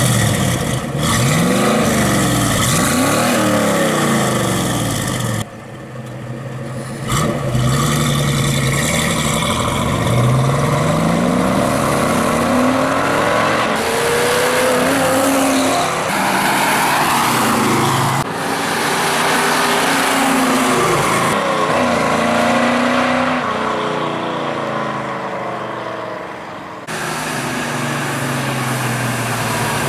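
Chevrolet 350 small-block V8 of a 1977 Camaro Z28 running through a Pypes stainless X-pipe exhaust with Street Pro mufflers: revs blipped and held, then the car accelerating away and driving by, the exhaust pitch rising and falling again and again. The sound breaks off and resumes several times.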